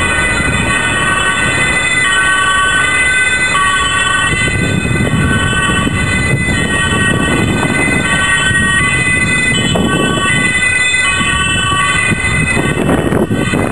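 Emergency vehicle sirens, several tones held and switching pitch every second or two, over the rumble of road traffic.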